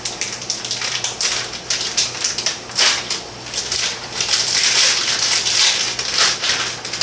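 Plastic shredded-cheese bag crinkling and crackling as it is pulled and worked open by hand, in a rapid irregular stream of rustles. The bag is a stubborn one that will not open smoothly.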